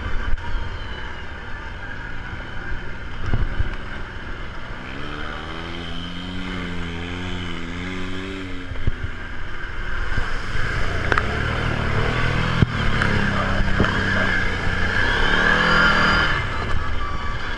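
ATV engine running while riding, its pitch rising and falling with the throttle, with a few sharp knocks along the way.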